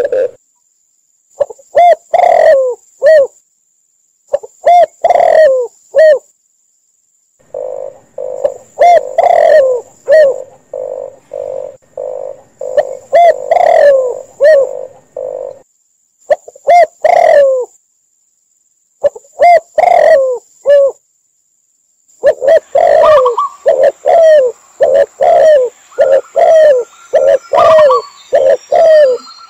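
Mixed cooing of spotted doves, red collared doves and zebra doves: short phrases of low repeated coos, broken by pauses. A longer, faster run of repeated coo notes comes in the middle, and several calls overlap near the end.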